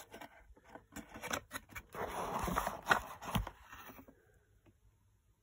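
An air pistol being handled and lifted out of its cardboard box: a run of light clicks and knocks, then a rustling, scraping stretch of cardboard and paper, dying away after about four seconds.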